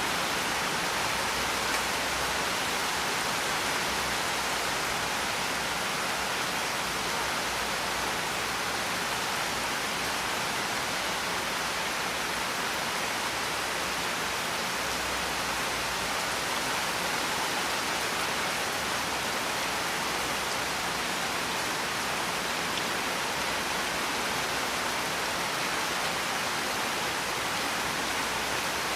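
Steady rain falling: an even hiss of drops that does not let up.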